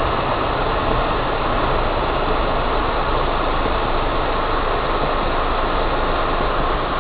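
Steady car engine and road noise heard from inside the cabin, even in level with no distinct knocks or changes.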